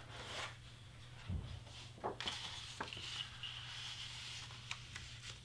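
Faint handling of large cardstock sheets: light rustling and scraping, with a soft thump a little over a second in and a few small clicks, over a low steady hum.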